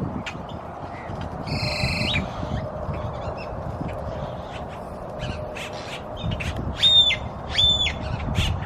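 Park birds calling and squeaking: a harsh squawk about a second and a half in, then two short, high squeaky calls near the end, with many short clicking notes between, over a steady low background rumble.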